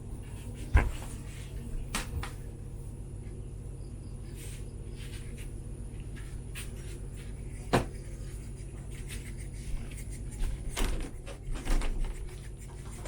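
Scattered light clicks and knocks, about half a dozen spread through the stretch, over a steady low hum.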